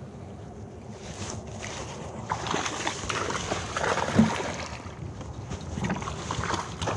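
Water sloshing and splashing around a fishing kayak, with wind on the microphone: irregular noise that gets busier after about a second, with one sharper knock about four seconds in.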